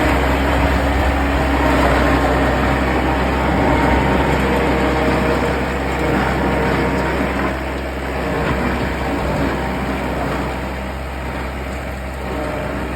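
Engine of a rice combine harvester converted to pull a soil-tilling rig, running steadily. It gets a little quieter after about six seconds.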